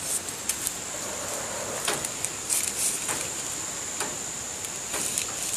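Paper rustling with a few soft taps as sheets of paper are lifted, folded and laid down on a cutting mat, over a steady high-pitched whine.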